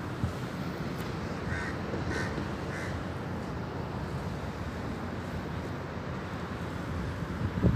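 A bird calls three times in quick succession, about half a second apart, over steady wind noise on the microphone. A low thump comes near the end.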